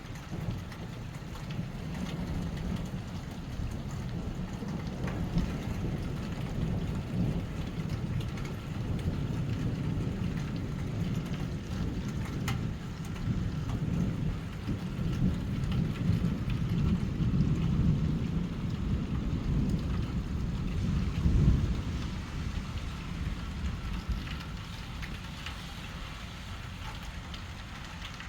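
Heavy rain falling in a severe thunderstorm, with a deep low rumble of thunder that builds to its loudest point about three quarters of the way through and then eases off.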